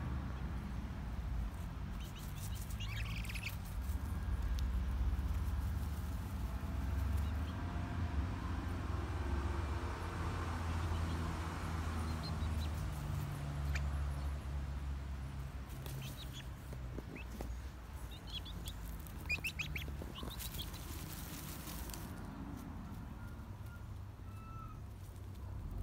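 Young chickens dust-bathing in dry leaves and dirt: scattered rustling and scratching, with a louder burst of rustling about three-quarters of the way through. A few short, high bird chirps come now and then over a steady low rumble.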